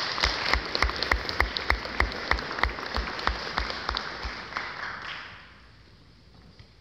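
Audience applauding, with one person clapping loudly and evenly close by, about three claps a second. The close claps stop after about four seconds, and the applause dies away about five seconds in.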